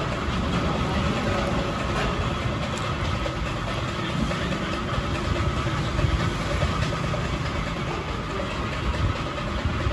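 A steady low rumble like an idling engine, with a faint steady whine above it.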